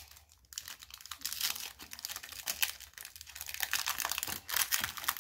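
Foil Pokémon trading card booster pack crinkling and crackling as it is torn open by hand, a dense run of sharp crackles starting about half a second in.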